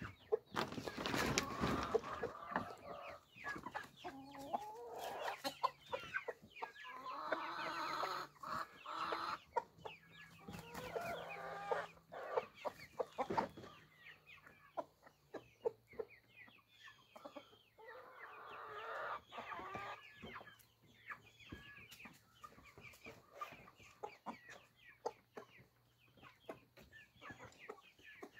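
A backyard flock of chickens clucking, with a few longer drawn-out calls among the clucks and many short clicks throughout.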